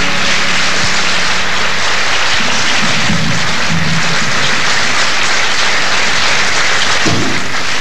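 Audience applauding steadily at the end of a live song, with the band's last held note dying away in the first second or two.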